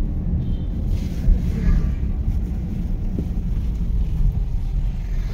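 Steady low rumble of a car driving, heard from inside the cabin: engine and tyre noise, with wind buffeting the microphone.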